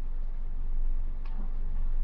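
Steady low rumble of a stationary car heard inside its cabin, with one faint tick about a second in.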